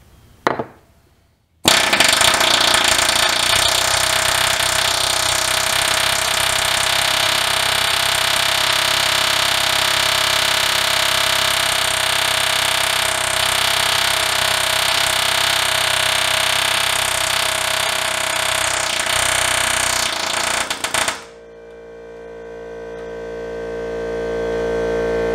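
Harbor Freight pneumatic air hammer with a long-throw bit hammering continuously against the steel frame, driving at the factory rivets of the truck's center crossmember. It stops about 21 seconds in, and a fainter steady hum with several tones grows louder near the end.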